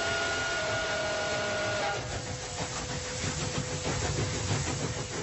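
Steam locomotive whistle sounding a chord of several notes for about two seconds. Then the hissing, rumbling and clatter of the locomotive running on the rails.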